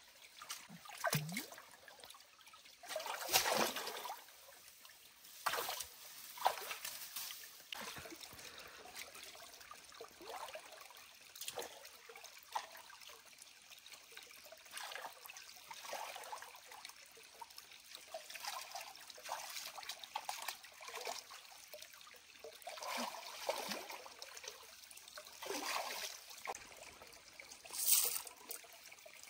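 Shallow stream water trickling and splashing, with irregular splashes, the loudest about three and a half seconds in and near the end.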